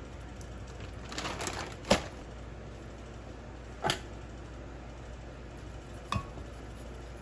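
Kitchen containers and utensils being handled during food prep: a brief rustle, then three sharp knocks about two seconds apart, the first the loudest.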